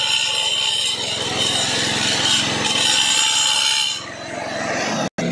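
Electric angle grinder with a cutting disc running through ceramic tile: a steady high whine over a grinding rasp. It eases off about four seconds in and cuts off suddenly near the end.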